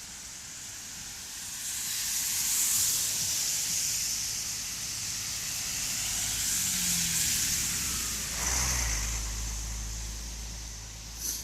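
Car tyres hissing on wet asphalt as traffic passes, swelling up about two seconds in and slowly fading. A low engine rumble comes in near the end.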